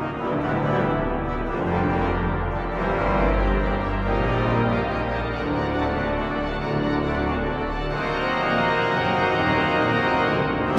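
Pipe organ music: full sustained chords over deep bass pedal notes, the harmony changing every second or two.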